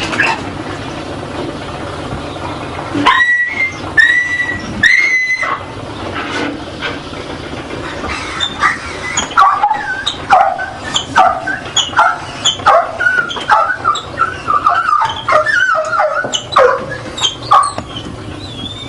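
A dog whining and yelping: three high drawn-out whines a few seconds in, then a rapid run of short yelps and whimpers from about halfway on.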